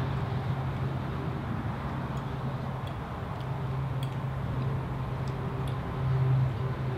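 A steady low mechanical hum with a few faint, scattered clicks of cutlery on dishes.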